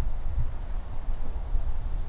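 Wind buffeting the microphone: an uneven low rumble with a faint hiss over it.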